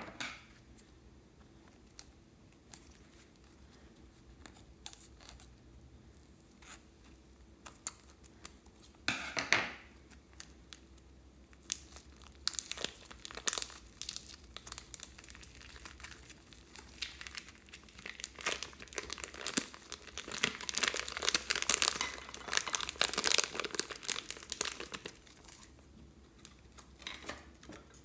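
Plastic piping bag crinkling and tearing as hands squeeze and peel it off a rainbow slime filling. There are scattered crackles at first, one louder rustle about a third of the way in, then dense crinkling through most of the second half.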